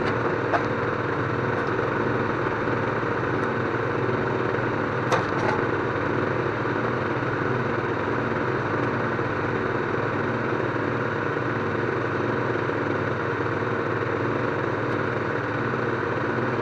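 An engine running at a steady idle, with a couple of sharp clicks about half a second and about five seconds in.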